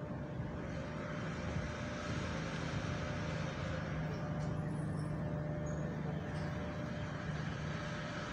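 Road traffic: a vehicle's engine running close by, a steady low hum that swells a little in the middle.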